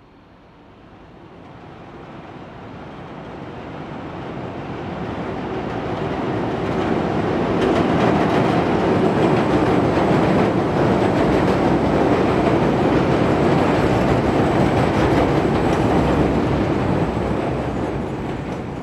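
A Chicago 'L' train passing on the elevated track, its wheels running on the rails. The sound builds over several seconds, stays loud through the middle, and eases a little near the end.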